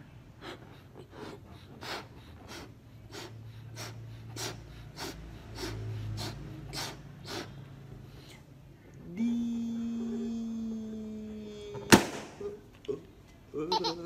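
Latex balloon blown up by mouth in quick puffs, about one every two-thirds of a second. Then a steady squealing tone for about three seconds, ended by a loud, sharp pop as the balloon bursts.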